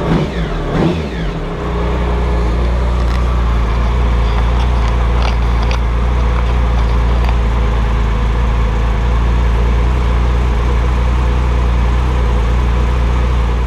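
Triumph Sprint ST 1050's three-cylinder engine, with a TOR aftermarket exhaust, given a quick throttle blip: the revs rise and fall back within the first second or two. It then settles into a steady idle while its throttle bodies are being balanced.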